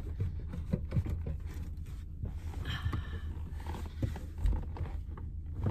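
Car seat being adjusted by hand: scattered clicks and knocks and a brief scrape about three seconds in as the seat lever is worked and the seat moved, over a low steady rumble.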